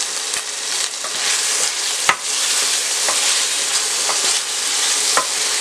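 Beef liver pieces frying in oil with garlic, ginger and green chillies in a stainless steel pan, sizzling steadily while a wooden spoon stirs them. The spoon knocks against the pan a few times, loudest about two seconds in.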